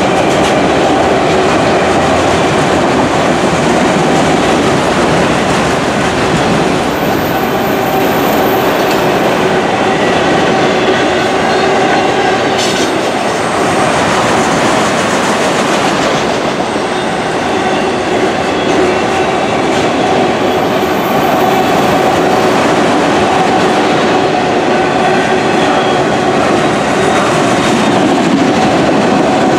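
Freight train of autorack car carriers rolling past at close range: a steady, loud rumble of steel wheels on rail with clickety-clack over the rail joints and a faint held metallic ringing.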